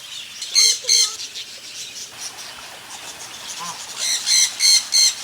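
Birds squawking: two harsh calls about half a second in, then a run of four more near the end, with fainter chirping from other birds underneath.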